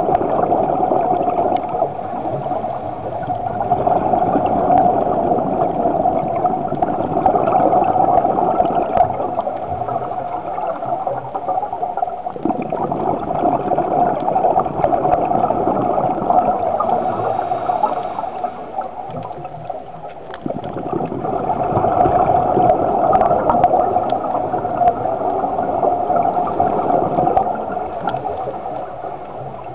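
Muffled underwater gurgling of a scuba diver's exhaled bubbles and regulator breathing, heard through an underwater camera housing, swelling and easing every several seconds.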